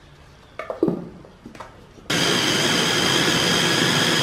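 Electric meat chopper with a glass bowl and stainless motor head switching on about two seconds in, then running steadily with a high whine as it minces pork.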